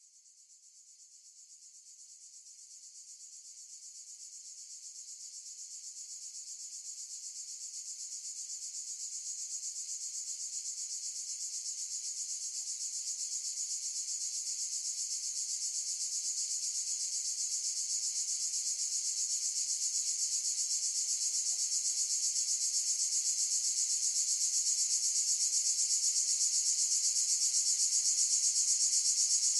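Cicadas buzzing in a steady, high-pitched chorus that fades in slowly from near silence and keeps growing louder.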